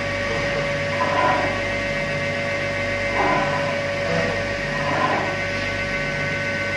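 CNC vertical machining center powered up and running, giving a steady electrical hum with a constant whine. A few brief swells rise over it.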